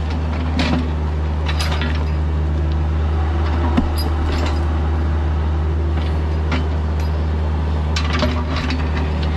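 Bobcat E26 mini excavator's diesel engine running steadily, with scattered irregular clinks and scrapes from the bucket working among rock and stones.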